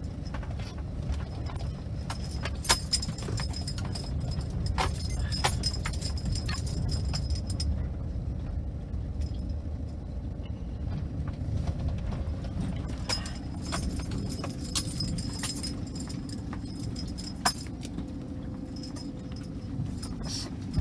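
Car driving, a steady low rumble with frequent rattles and knocks over it.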